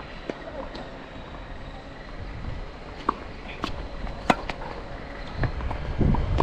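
Tennis balls being struck and bouncing on the court: a string of short, sharp pops, the loudest about four seconds in, with gusts of wind rumbling on the microphone.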